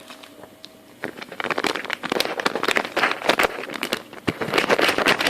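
Cake batter being stirred briskly by hand in a bowl, the utensil clattering rapidly against the bowl. It starts about a second in and pauses briefly near the end.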